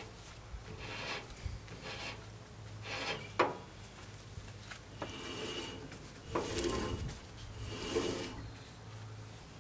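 Gloved hands rubbing and scraping on the steel band blade and wheel of a Frontier OS31 portable bandsaw mill while a replacement blade is fitted. The strokes are irregular, with one sharp metallic click about three and a half seconds in and heavier rubbing near the end.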